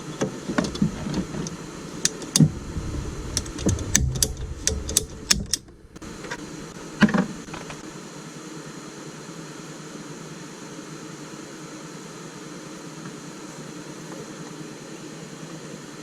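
Scattered clicks and knocks of plastic CPVC pipe and fittings being handled and worked, with low thumps, for about the first six seconds. One more knock comes about a second later, then only a steady hum.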